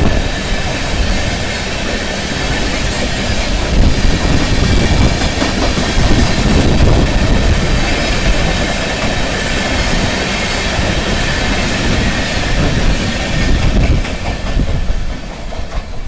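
Passenger train coaches running past at speed, a steady rush of rolling noise with the wheels clattering over rail joints. The noise eases off near the end as the last coaches go by.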